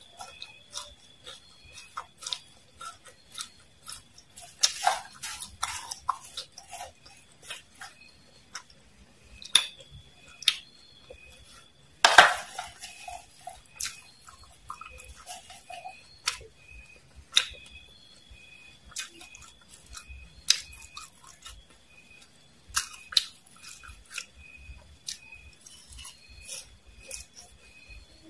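Close-miked eating sounds: crisp crunching and chewing of fried mole crickets and worms, with a metal spoon clinking and scraping on the plate. The loudest sound, about twelve seconds in, is a sharp scrape that trails off over about a second.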